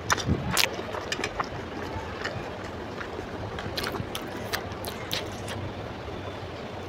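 Close-miked chewing of a mouthful of instant noodles: sharp wet mouth clicks and smacks, thickest in the first second and again around four to five seconds in, over a steady background hiss.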